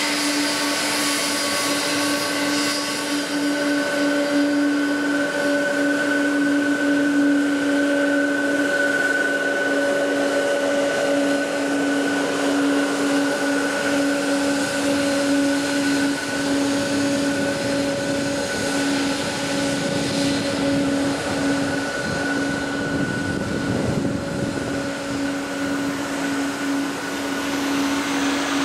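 Boeing 777-200 airliner's twin turbofan engines running at taxi power as it rolls along the runway: a steady hum with a higher, held whine over a broad hiss.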